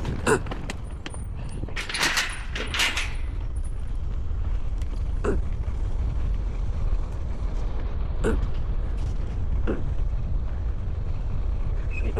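ATV engine running with a steady low rumble that grows a little louder after about four seconds, with occasional creaks and knocks from the machine, the loudest around two to three seconds in.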